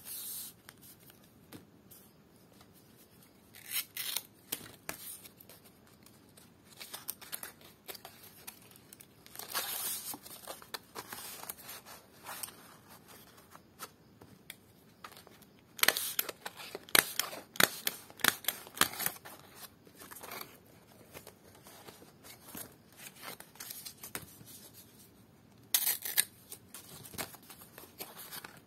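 Stiff dried lontar palm-leaf (ental) strips being handled and folded, rustling and crackling in bursts, with sharp clicks. The loudest run of clicks comes a little past halfway.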